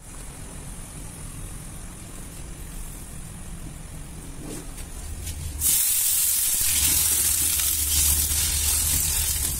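A steady, quiet hiss from the gas burner heating a cast iron skillet. About halfway through, it gives way abruptly to a much louder, steady rush of tap water pouring onto the skillet in a steel sink.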